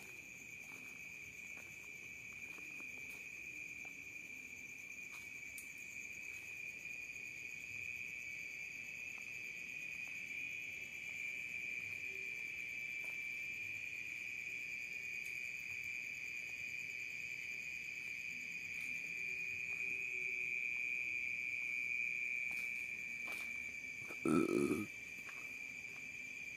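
Night insects, crickets, trilling in a steady high-pitched chorus. About 24 seconds in there is a brief louder noise.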